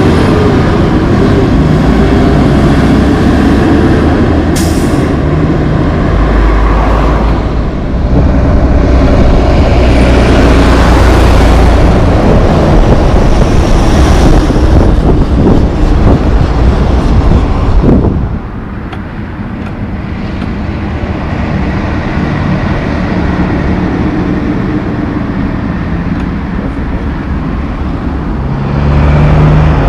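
Heavy diesel trucks, a lowboy hauling a tracked logging machine and then a loaded Kenworth log truck, pull past close by with their engines running loud over road noise; a brief hiss of air comes about four to five seconds in. About eighteen seconds in, it drops to quieter, steadier passing car traffic.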